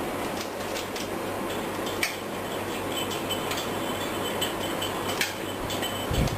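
A steady low hum over a noisy background, with a few light clicks and clinks, one about two seconds in and another about five seconds in, and a low thump near the end.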